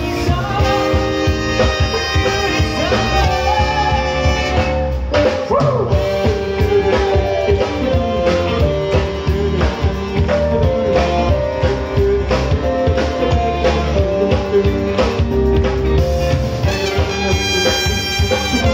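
Live band playing an upbeat pop song: saxophone lines over drums, electric bass and keyboard, with a male lead vocal.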